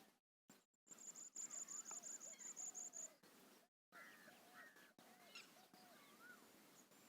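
Several birds calling in a morning chorus: a fast, high-pitched trill of about seven notes a second starts about a second in and lasts about two seconds, over a mix of short, lower whistles and chirps. The sound cuts out completely for a moment twice.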